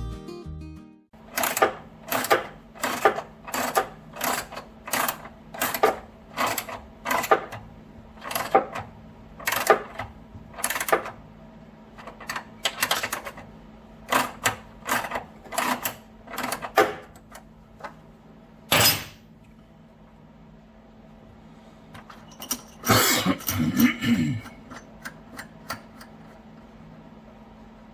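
Ratchet wrench clicking in a steady rhythm of about two strokes a second, tightening a homemade bolt-and-washer puller that draws a polyurethane bushing into place. A single sharper click follows, then a brief clatter of knocks near the end.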